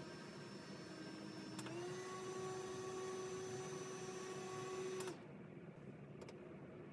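Small electric desk fan running with a steady motor whine. A button click about a second and a half in steps it up a speed and the whine rises slightly in pitch. Another click about five seconds in cuts the whine off, leaving a fainter steady hiss.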